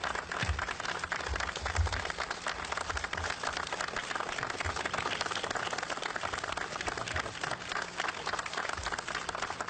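Steady applause, a dense patter of many hands clapping, with a low rumble under it in the first few seconds.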